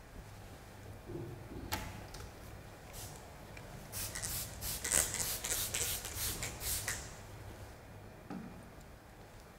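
Straight razor scraping through stubble: a few single strokes, then a quick run of short, scratchy strokes in the middle.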